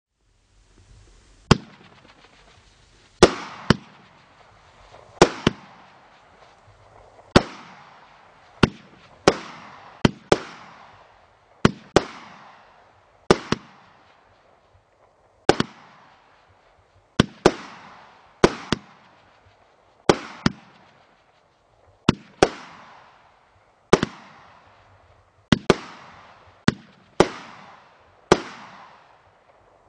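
A 16-shot consumer firework cake firing its shots one after another, about every one to two seconds, often in quick pairs. Each shot is a sharp bang followed by a fading hiss of sparkle.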